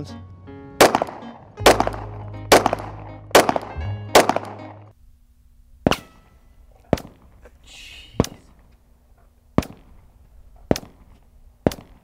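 Five Glock 17 9mm pistol shots fired close by, a little under a second apart, over background music. Then a series of fainter sharp cracks about a second apart: 9mm rounds heard from behind a berm some 230 yards downrange as they pass overhead, subsonic at that range, with a faint buzz near the middle.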